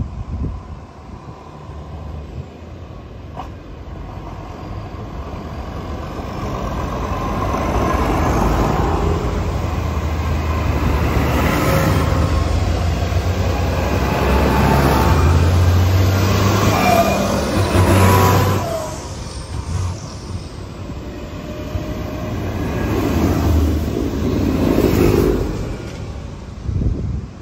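Tractor diesel engines running as tractors drive past one after another. A blue New Holland is loudest as it passes close, its engine note swelling to a peak and then fading. Another tractor's engine swells up again near the end.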